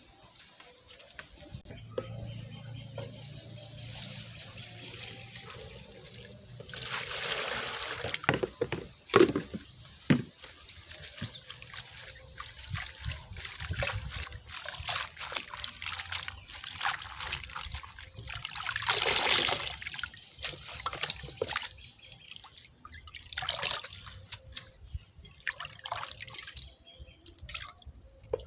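Water being handled during food preparation: sloshing, trickling and dripping, with many short knocks. There are two louder pours or splashes, about seven and nineteen seconds in.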